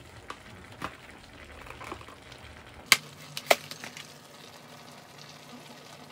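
A few short, sharp clinks and knocks over a faint hiss. The loudest comes just before three seconds in, followed by two more about half a second later.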